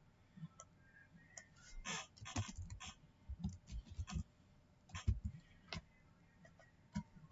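Typing on a computer keyboard: faint, irregular clusters of key clicks with soft low knocks as keys are struck.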